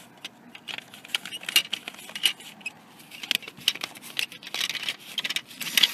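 A paper banknote crinkling and tapping as it is handled and pushed at a drinks vending machine's bill slot, in irregular crisp clicks and rustles; the machine is not taking the note.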